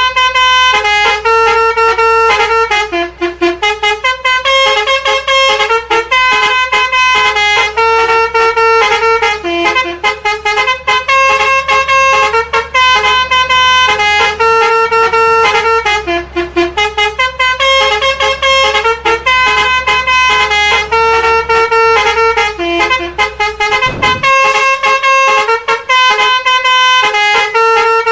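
Bus 'telolet' Basuri musical air horn playing a loud, continuous tune of quickly changing notes. A low steady hum runs underneath and stops with a short thump about 24 seconds in.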